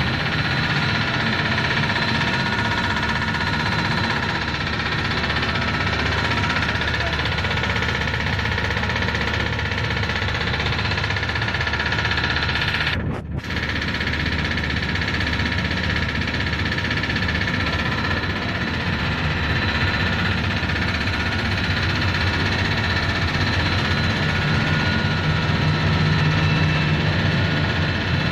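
Steady machinery din of a running snack-stick production line (extruder, cutter, conveyor and fryer), several steady tones over a dense hum. It drops out for a moment about halfway through.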